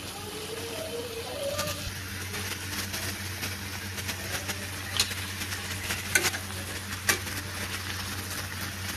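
Tomatoes and onions sizzling in a metal kadai as a steel spatula stirs them, with three sharp knocks of the spatula against the pan in the second half.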